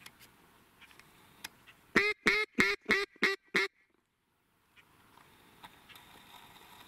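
A quick, even series of six loud duck quacks, about three a second, ending abruptly.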